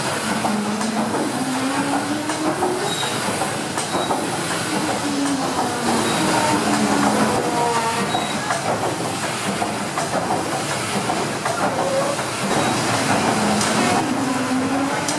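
Paddle steamer Waverley's triple-expansion diagonal steam engine running: a steady mechanical clatter and hiss from the moving cranks and rods, with a low tone that rises and falls again and again.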